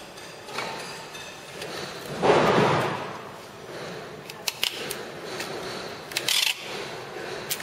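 Hands handling slit paper strips and adhesive tape on the cardboard cores of a paper slitter-rewinder: a loud burst of paper noise about two seconds in, a few sharp clicks, and a short higher rasp shortly before the end.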